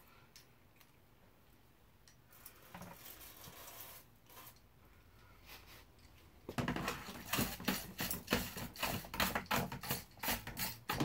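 Quiet at first, then from about six and a half seconds in a dense run of sharp clicks and rattles: metal drilling swarf and a plastic dustpan clattering as the chips are tapped off into a plastic bin.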